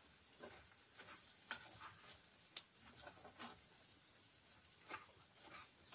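Rice frying faintly in pork fat, a low sizzle, while a spoon stirs it and scrapes against the pan a few times, toasting the raw rice.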